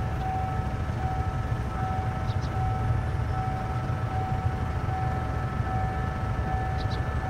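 Diesel locomotive engine running steadily as the train approaches slowly: a low rumble with a faint steady whine above it.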